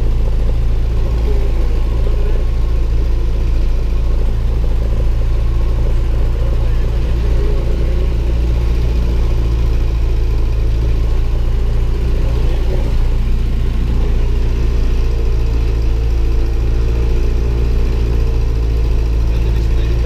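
Light aircraft's piston engine running steadily at run-up power, about 1700 rpm, heard inside the cockpit during the pre-takeoff engine check.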